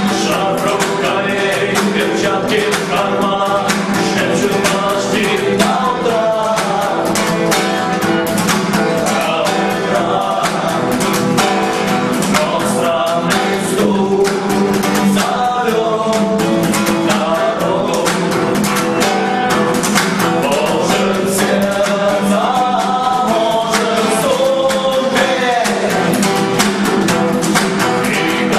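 A song with singing over guitar and a steady beat.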